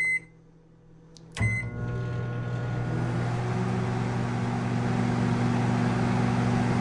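Microwave oven: a short keypad beep, then about a second and a half in a click and beep as it starts, after which it runs with a steady hum.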